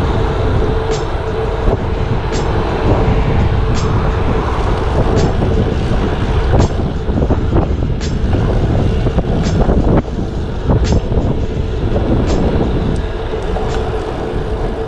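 Wind buffeting the microphone and road noise from a bicycle riding at speed, with a steady hum underneath. A light tick repeats evenly, a little more than once a second.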